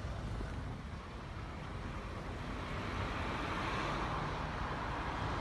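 Vehicle noise slowly building, over a steady low rumble, as a vehicle approaches.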